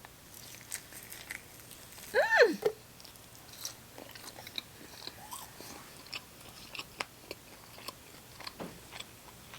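Close-up chewing of a chicken tender, with many small wet mouth clicks and smacks. A brief hum from the eater about two seconds in.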